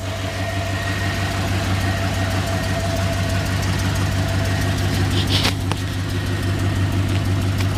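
2007 Chevy Avalanche's 5.3-litre LC9 aluminum-block V8 idling steadily, with a faint thin whine that fades out about halfway through. A short sharp click about five seconds in.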